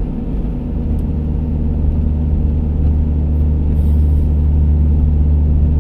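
Pickup truck's engine and road noise heard inside the cab while driving: a steady low drone that grows a little louder over the first few seconds, then holds.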